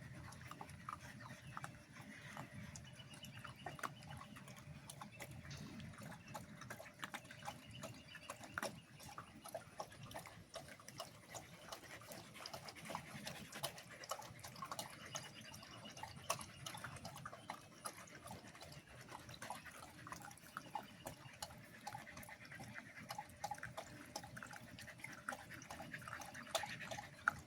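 Husky puppies moving about in mud and shallow water: many faint, scattered wet clicks, drips and small splashes.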